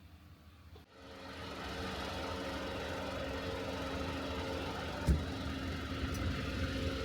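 Car engine and road noise coming in about a second in, then running steadily with a low hum, with a single thump about five seconds in.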